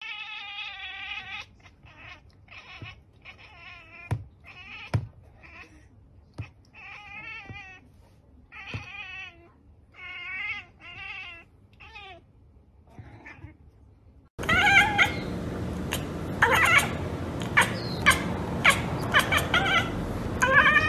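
Domestic cats chattering, the 'ekekek' prey call: a run of short, quivering chirps with clicks between them, typical of a cat that sees a bird or insect it cannot reach. About two-thirds of the way through, a second cat takes over, louder, with sharper clicks and short calls.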